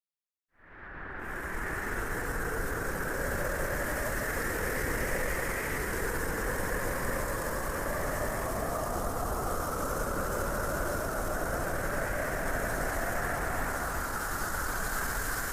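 A small motor, the kind that drives a DIY miniature tractor, running steadily. It fades in about half a second in and keeps going without a break, its pitch drifting slowly.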